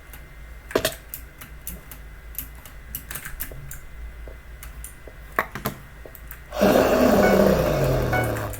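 Keystrokes on a Logitech mechanical keyboard with clicky blue-type switches: scattered sharp clicks, a few at a time. About six and a half seconds in, a loud rasping sound with a falling pitch covers everything for about two seconds.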